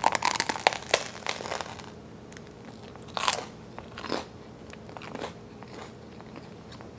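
A bite into crisp-crusted homemade French baguette: a quick run of crackling crunches over the first couple of seconds. Then a few slower chewing crunches about a second apart, growing fainter.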